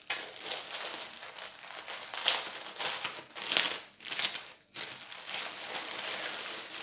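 Clear plastic packaging crinkling as it is handled, with louder rustles about two and a half and three and a half seconds in.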